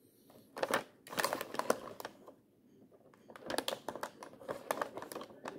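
Handling noise: irregular clicks and light rustles, in two clusters, as the bare speaker driver is touched and an infrared thermometer is brought up to it.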